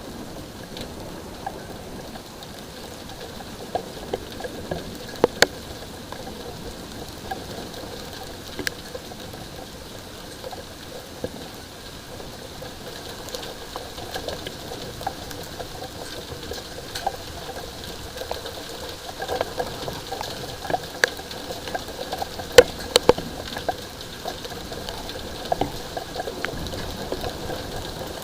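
Light rain falling steadily, with scattered sharp drops ticking on a nearby surface, growing more frequent in the second half.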